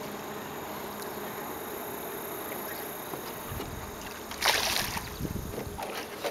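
A hooked bass splashes hard at the surface about four and a half seconds in, over a faint steady hiss of wind and water, with a few dull knocks around it.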